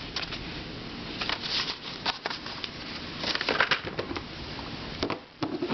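Small plastic puzzle cubes and keychain puzzles being handled and moved on a shelf: scattered light clicks and rattles.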